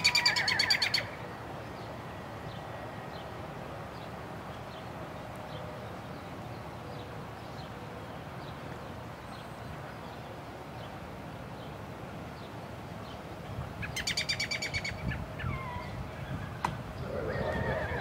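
Birds chirping in open air, with two loud, rapid trills, one at the start and another about fourteen seconds in.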